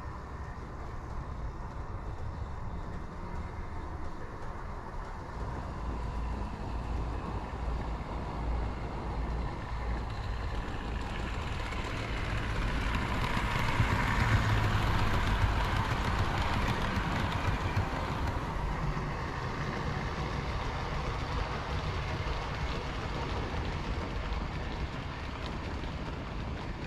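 Model railway train running on the track, a steady rumble that grows louder about halfway through as it passes close by, then fades back down.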